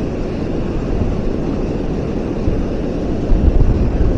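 Steady rushing of river water pouring over a low dam, with wind buffeting the microphone in low gusts from about three seconds in.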